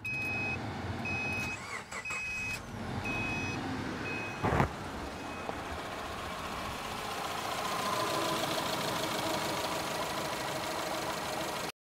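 Repeated short electronic warning chime from a car's dashboard, about one beep a second, over the rush of the heater fan. A single thump follows about four and a half seconds in. After that, the EJ253 2.5-litre flat-four of a 2009 Subaru Forester idles steadily, heard from the open engine bay, running smooth after its replacement.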